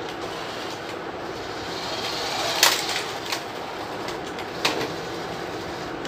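A small toy vehicle's motor and plastic wheels running on a tiled floor: a steady noise broken by three sharp plastic clicks, the loudest about two and a half seconds in.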